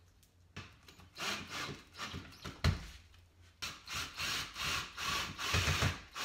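Cordless drill driving screws through a wall-mount flange into a wooden wall stud, in two noisy runs: a short one about a second in and a longer one starting a little after halfway, with a dull knock between them.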